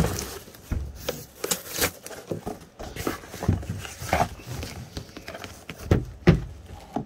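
Irregular knocks, clicks and rustling of boxes and packing material being handled and rummaged through, with a few louder thumps.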